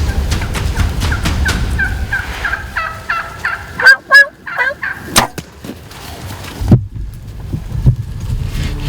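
Wild turkey gobbling: a rapid rattling run of notes with a few loud sharp clicks after it, over a low rumble of wind on the microphone.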